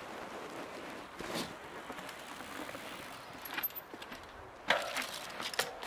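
Mountain bike rolling down a dirt trail: a steady rushing noise from the tyres and air, with a few scattered rattles and clicks from the bike.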